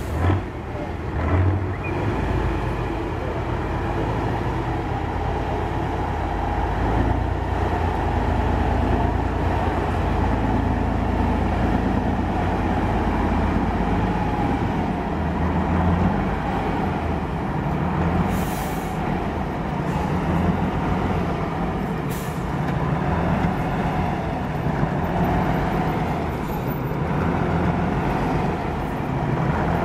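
Diesel engine of an eight-wheeled trial truck running steadily under load as the truck crawls up a dirt slope. Two short hisses come about 18 and 22 seconds in.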